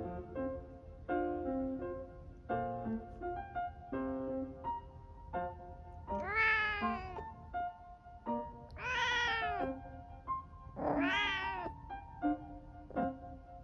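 Domestic cat meowing three times, each a long call that rises and then falls in pitch, about six, nine and eleven seconds in. Light piano background music plays throughout and fills the first half on its own.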